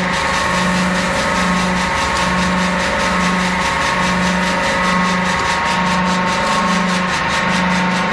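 Pneumatic valve bag packing machine running steadily while filling a cement bag, amid constant plant machinery noise. A low hum pulses on and off about once a second under a steady higher whine.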